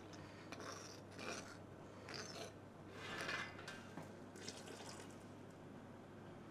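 A metal spoon scraping and clinking as it stirs turmeric into water in a small wooden bowl, in several short strokes about a second apart, the loudest around three seconds in. Near the end the turmeric water is poured into a steel pot of boiling lentils.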